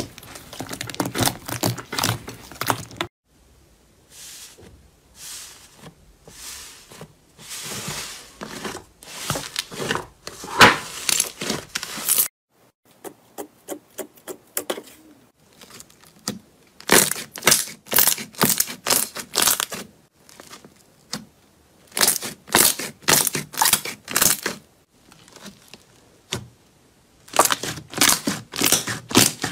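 Hands kneading, pressing and poking slime: a thick yellow slime, then a clear red jelly slime, then a pink fluffy slime. Each gives runs of crisp crackling and popping clicks, several a second, with short quieter pauses between them.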